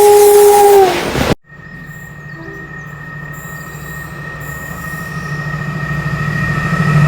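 A British locomotive's two-tone horn sounds loudly and sags in pitch as it ends. After a sudden cut, an approaching train hums low with a thin high whine, growing steadily louder.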